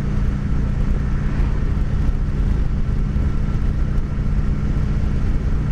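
Kawasaki Vulcan 900 cruiser's V-twin engine running steadily at road speed, with wind noise over the microphone.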